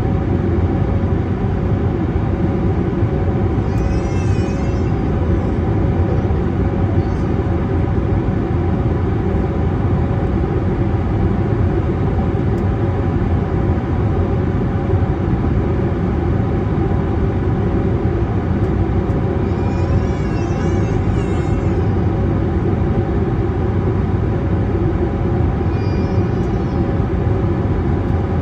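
Steady cabin roar of an Airbus A321neo climbing after takeoff, heard inside the cabin over the wing: its Pratt & Whitney geared turbofan engines and the rushing air make a deep, even rumble with a few faint steady tones on top. Brief high wavering sounds come through about four seconds in, around twenty seconds in, and near the end.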